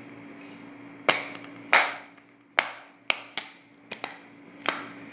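Bubbles of a paw-print silicone Pop-It fidget toy being pressed, popping about seven times at uneven intervals.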